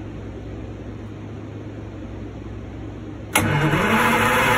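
A steady low hum, then a little over three seconds in a Detroit Diesel 6-71 two-stroke inline-six diesel starts with a sudden loud onset, its pitch rising as it picks up speed.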